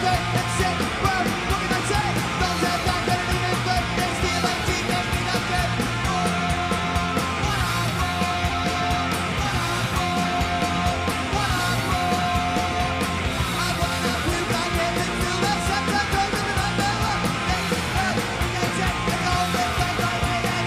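Rock music with a steady drum beat, guitar and vocals.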